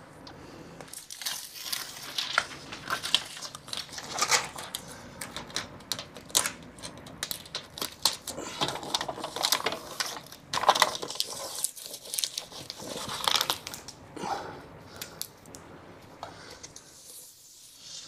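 Aluminium foil tape being handled and applied: the foil crinkling and the tape tearing and peeling as it is pressed over screw holes and seams in an air handler's sheet-metal cabinet, heard as a string of irregular crackles and clicks that quieten near the end.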